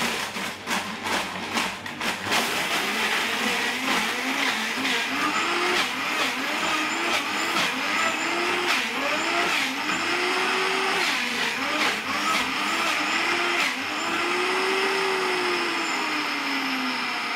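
Optimum 9400 blender crushing ice: chunks of ice clatter sharply against the jug in the first few seconds, then the motor's whine repeatedly dips and recovers as the tamper pushes the ice down into the blades. Near the end it is switched off and the motor winds down with a falling pitch.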